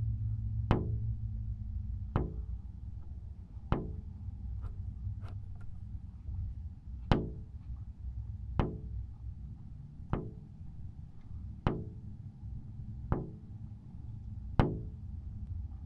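Sharp knocks at an even, slow beat, about one every one and a half seconds, over a steady low hum.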